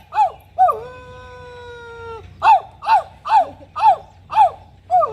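A man imitating a dog with his voice: runs of short yelping barks, about two a second, each run ending in a long, drawn-out howl.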